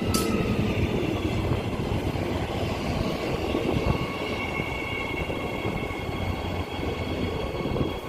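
Transperth electric multiple-unit train at the platform, giving a steady electric whine over a low rumble.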